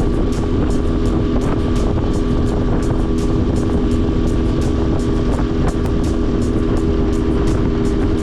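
Ten-horsepower four-stroke Mercury outboard running steadily with the boat under way, with a run of short sharp taps over the engine sound.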